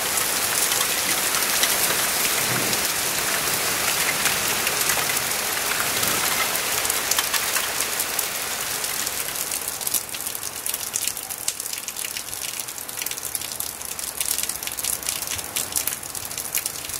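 Heavy rain falling in a downpour, with sharp separate drop hits through the steady rush; it eases and grows quieter about ten seconds in.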